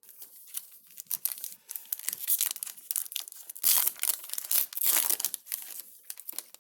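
Plastic wrapper of a jumbo baseball card pack being torn open and crinkled in the hands, a dense irregular crackle, loudest around the middle.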